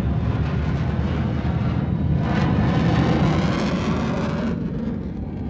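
Jet aircraft engines as a plane accelerates and passes during takeoff, a dense rushing noise that swells to its loudest about three seconds in, then its higher part cuts off abruptly about a second before the end.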